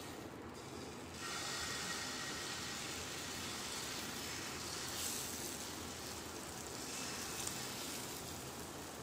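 Banana-and-maida batter sizzling as it is ladled into hot oil in a nonstick pan; the sizzle steps up about a second in and then holds steady.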